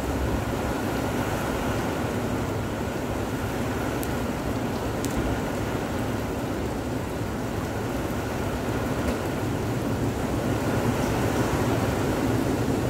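Typhoon wind rushing through palm trees and dense foliage: a steady, loud rushing noise with a low rumble from wind buffeting the microphone, growing a little stronger near the end.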